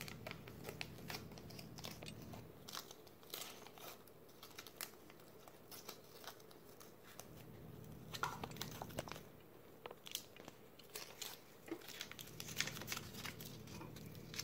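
Adhesive tape being pulled off the roll and wrapped around a stick: faint, irregular crackling and tearing, over a steady low hum.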